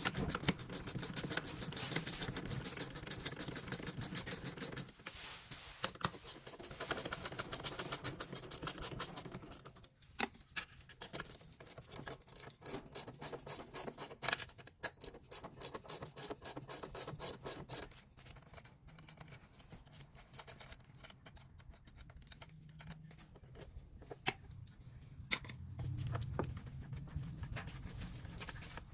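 Hand wrenches loosening a double-nutted mounting bolt on an air hose reel. Fast runs of fine clicking fill about the first nine seconds, then scattered metal scrapes and clinks follow.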